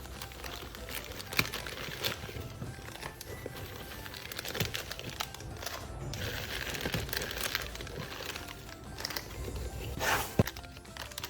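Paper being handled, crinkling and rustling with irregular sharp clicks and taps, over background music.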